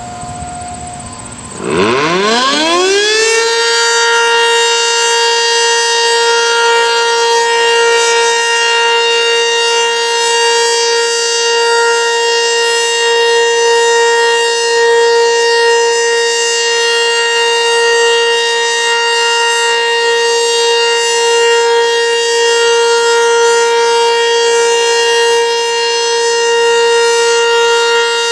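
ACA Banshee outdoor warning siren starting up about two seconds in: its pitch climbs quickly and then holds one loud, steady tone rich in overtones, the steady signal of its weekly test.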